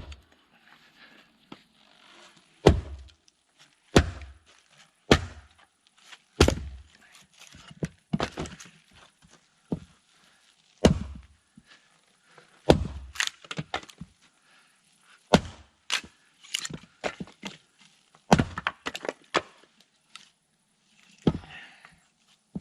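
Firewood being chopped with an axe: a run of sharp, loud strikes on wood about every one to two seconds, with smaller knocks and splitting sounds between.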